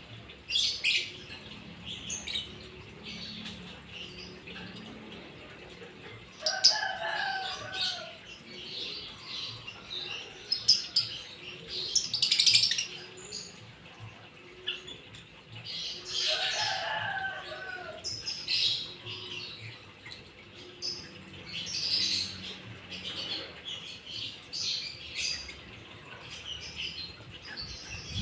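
Small songbirds, white-eyes (pleci), giving short, high, thin chirps over and over. A louder, lower call of about a second cuts in twice, about seven and sixteen seconds in.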